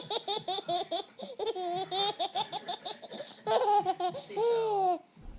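High-pitched laughter in a rapid run of short notes, about five a second, ending in a couple of longer drawn-out notes before it cuts off suddenly.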